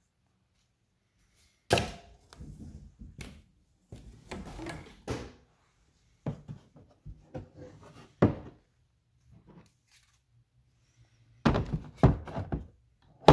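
Hard plastic power-tool case being opened and its contents handled: a string of clicks and hollow plastic thunks, with the loudest cluster of knocks near the end as the expansion tool is handled in its moulded tray.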